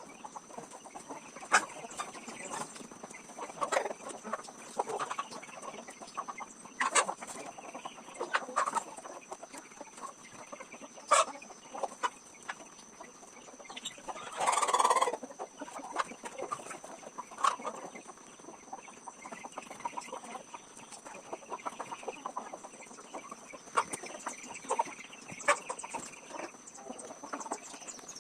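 A flock of farmyard chickens clucking, with short calls scattered throughout and one louder, rougher call lasting about a second around the middle.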